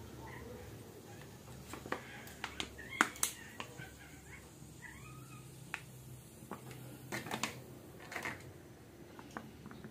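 A plastic pouch of vegetable oil handled over a pan: a run of sharp crinkles and clicks, loudest about three seconds in and again around seven to eight seconds, with a few faint squeaky glides in between.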